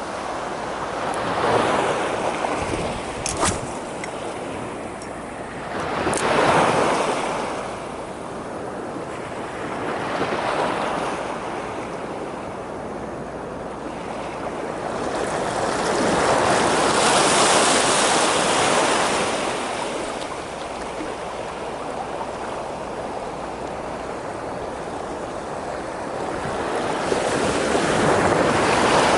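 Surf breaking on the shore: waves surge up and wash back about five times, one long surge in the middle. Two or three brief sharp clicks in the first seven seconds.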